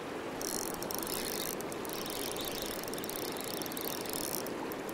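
Spinning reel being cranked, a fast whirring and clicking of its gears, starting about half a second in and stopping near the end, over the steady rush of the river.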